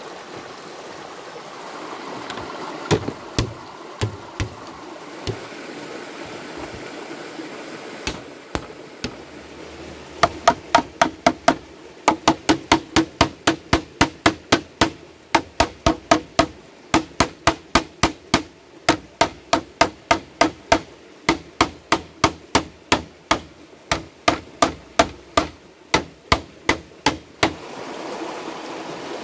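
Hammering on a bamboo furniture frame: a few separate blows, then a long steady run of sharp knocks, two to three a second, that stops shortly before the end. A stream runs in the background.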